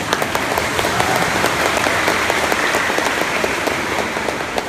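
Audience applauding: many people clapping together in a dense, steady patter that dies down near the end.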